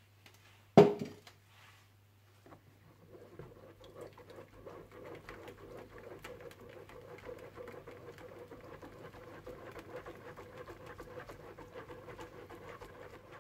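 A sharp knock about a second in, then a spoon working blended tomato pulp through a fine mesh sieve: a steady patter of small scrapes and taps lasting about ten seconds.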